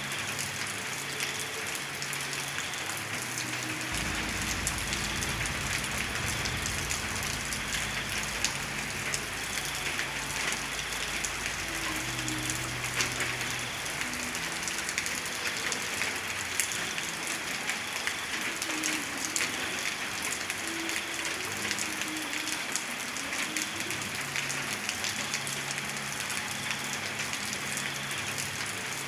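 Steady rain falling, with many small drop impacts heard throughout. A low rumble sits underneath from about four seconds in, for roughly ten seconds.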